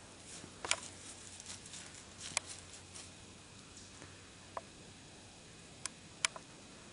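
Deer stepping through dry leaf litter: a handful of brief, sharp leaf crackles from its hooves at uneven intervals, the loudest near the end.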